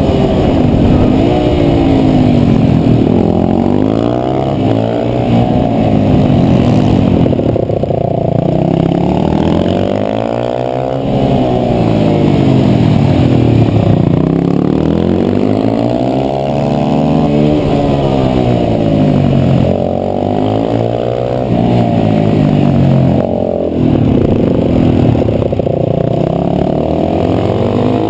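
KTM 525 supermoto's single-cylinder four-stroke engine under race riding, revving up and dropping back again and again as it accelerates out of corners and slows into them.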